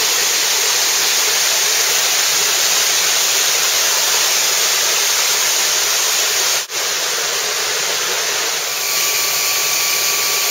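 Mountain stream rushing over rocks, a loud steady rush of water. About two-thirds of the way in it briefly dips. Then a steady high whine joins the rushing water: the small hydroelectric turbine-generator fed by the 4-inch pipe.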